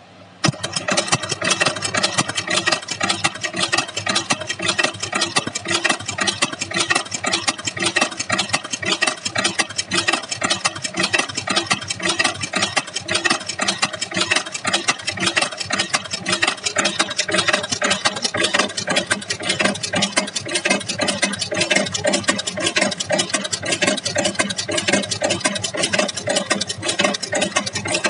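Automatic chain-making machine running at speed, a dense, rapid, even metallic clatter as it bends and forms wire into chain links. It starts abruptly about half a second in.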